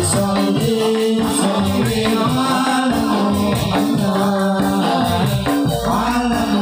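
Music for Angguk folk dance: singing over a steady beat with jingling percussion like a tambourine.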